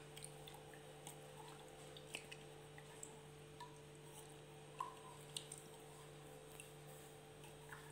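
Faint wet squishing and small scattered ticks of fingers stirring gram flour into water in a steel tumbler, rubbing out the lumps, over a steady low hum.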